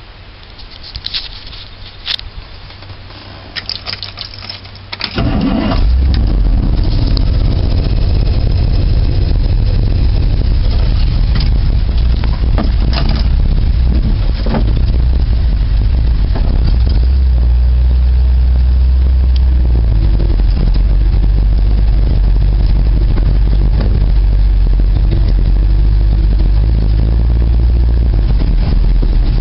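A few clanks, then a car engine starts about five seconds in and keeps running steadily and loud.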